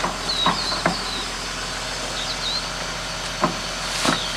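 Kato HD1430 excavator engine idling steadily, with several sharp metal knocks as a steel mounting pin is worked through the bracket of a hydraulic rock breaker.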